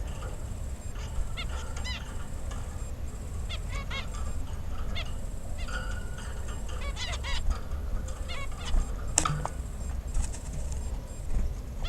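Pet birds calling in short, repeated calls, several at once in clusters, over a steady low rumble.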